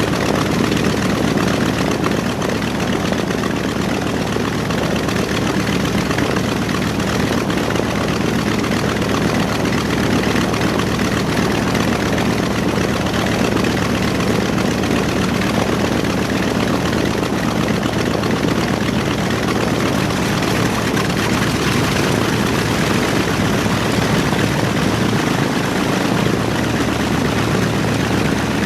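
B-25J Mitchell's Wright R-2600 Twin Cyclone 14-cylinder radial engines running steadily with propellers turning, a loud, even drone with no change in speed.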